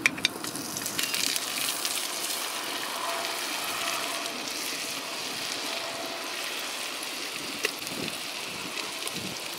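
Butter and pieces of pork fat sizzling in a hot cast iron potjie pot, a steady sizzle full of small crackles and pops.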